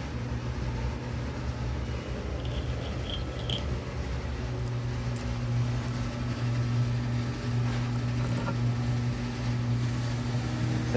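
A few light metallic clinks of hex bolts and washers being handled and started by hand into a wooden shelf, a cluster a couple of seconds in and more near the end, over a steady low hum.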